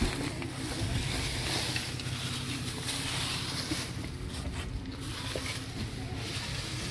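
An engine running steadily, with an even hiss over its low hum.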